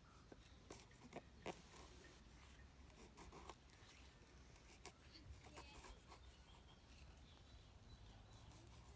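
Faint, scattered small clicks and scratches of hand work with tools and material, a few sharper ticks between one and two seconds in, over a low steady hum.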